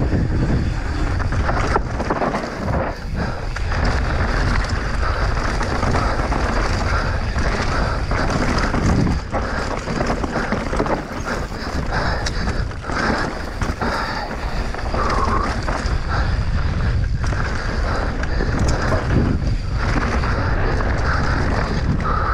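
Mountain bike descending an enduro trail at speed: wind noise on the microphone over the rumble of tyres on dirt, with frequent rattles and knocks from the bike on rough ground.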